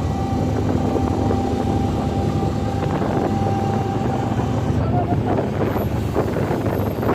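A crew boat's marine diesel engines running steadily as it holds alongside another vessel in a swell, with wind buffeting the microphone. A faint steady high whine runs under the engines and stops about five seconds in.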